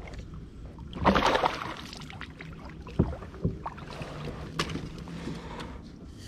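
Handling noise in a plastic fishing kayak while a hooked fish is being fought: a short loud rush about a second in, then a few sharp knocks against the hull.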